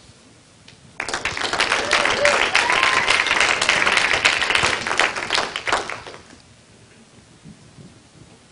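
Audience applause: a crowd clapping, starting suddenly about a second in and fading out after about five seconds.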